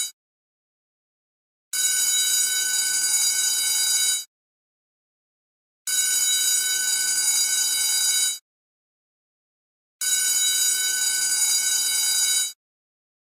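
School bell ringing in three bursts of about two and a half seconds each, with a silent pause of about a second and a half between them.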